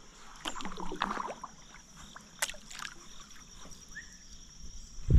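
Kayak paddling: the double-bladed paddle dipping and splashing in the river, with a sharp click about halfway through and a loud knock at the very end.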